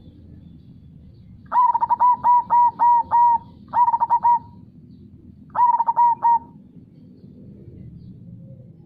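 Zebra dove (perkutut) cooing in three phrases: a run of about seven quick coos, then two shorter bursts. Under it runs a low, steady rush of flowing river water.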